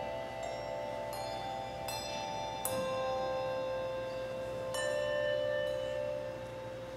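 Handbells rung one after another, about five strikes, each bell ringing on and overlapping the next. The last ringing fades away near the end.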